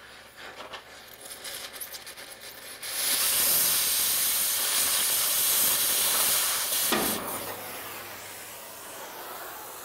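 Oxy-fuel cutting torch cutting rusted steel: faint crackling at first, then about three seconds in the cutting jet comes on as a loud steady hiss, which ends with a short pop about seven seconds in and drops to a quieter hiss.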